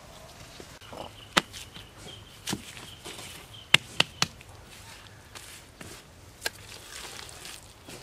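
Stones being set by hand into wet mud and knocking against other stones: irregular sharp knocks, with three in quick succession about four seconds in. A faint high steady whine sits underneath for a couple of seconds in the first half.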